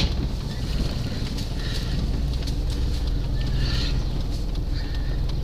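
Car driving, heard from inside the cabin: a steady low engine and road rumble with scattered light clicks and rattles.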